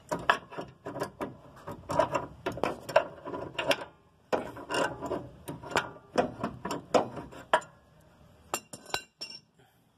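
Stilson pipe wrench working an inner tie rod loose from the steering rack: short metallic clicks and scrapes, about two to three a second, as the jaws bite, turn and slip back. They stop after about seven and a half seconds, and a few sharp clicks follow.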